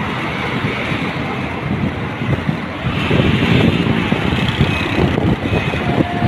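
Road traffic from a busy multi-lane road below (trucks, buses, cars, motorcycles), heavily mixed with wind buffeting the microphone; the wind gets louder about halfway through.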